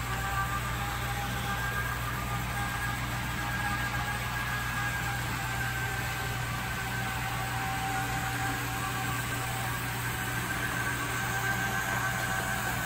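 Can motor and Delrin chain drive of a 00 scale DJH LNER U1 Garratt model locomotive running along the track: a steady whirring noise with a faint whine that wavers slightly in pitch. The chain drive makes the model noisy.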